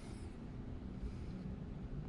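Quiet room tone: a faint steady low hum over light hiss, with a soft brushing sound right at the start.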